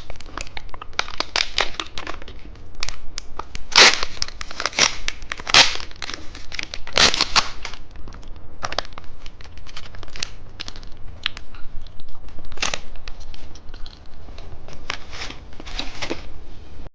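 Candy wrappers crinkling and rustling as they are handled close up, in dense, irregular crackles.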